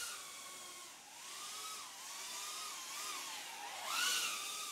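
BETAFPV Meteor75 Pro tiny-whoop FPV drone flying, its small brushless motors and ducted propellers whining, the pitch gliding up and down with the throttle. The whine swells louder and higher about four seconds in.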